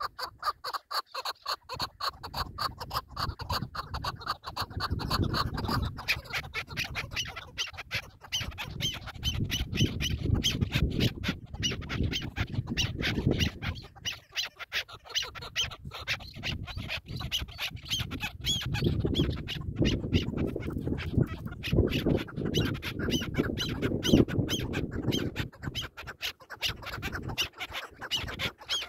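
Chukar partridges calling: a long, continuous run of short repeated notes, several a second.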